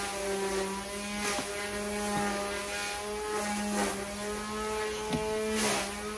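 Lawnmower running at a steady pitch as a constant drone, with a few soft clicks over it.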